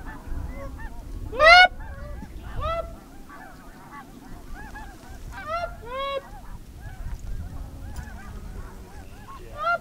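A flock of snow geese calling: many overlapping short, high yelps, with a few louder close calls standing out, the loudest about one and a half seconds in.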